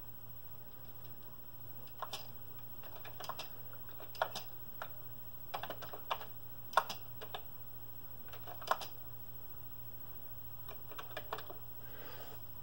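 Slow, irregular keystrokes on a Commodore VIC-20 keyboard: single key clicks with uneven pauses between them as a line of text is typed.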